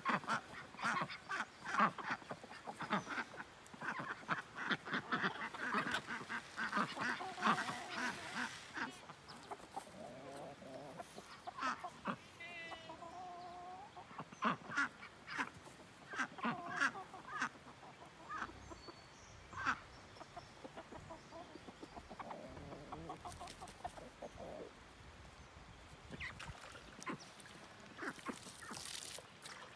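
A flock of domestic ducks quacking over and over, with chickens clucking among them, at feeding time; the calls come thick and fast for the first several seconds, then thin out.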